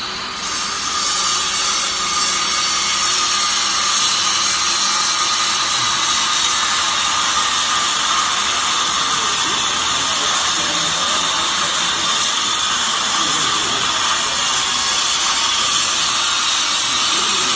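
Fiber baler machinery running: a steady, loud hiss with a faint whine through it, rising slightly in the first second and then holding even.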